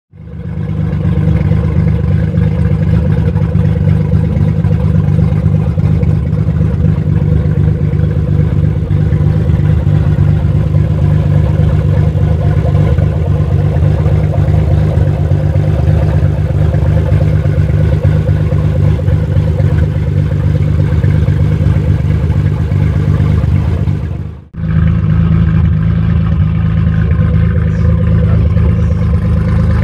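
Tuned Nissan GT-R R35's twin-turbo V6 idling steadily. The sound breaks off for a moment about 24 seconds in, then the same idle carries on.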